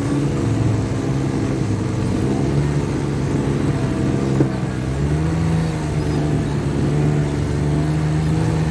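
Snowmobile engine running steadily while riding along a snowy trail, its hum wavering in pitch; it dips briefly about halfway through and then picks back up.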